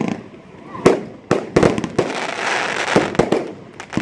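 Red Apple Sin City Standard 500 g fireworks cake firing: about seven sharp bangs from shells bursting overhead, with a hissing crackle between them in the middle. The reports are heavy on flash powder.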